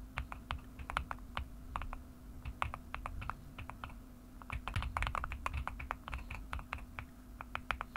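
Computer keyboard keys pressed in irregular runs of short clicks, busiest about halfway through, over a faint steady low hum.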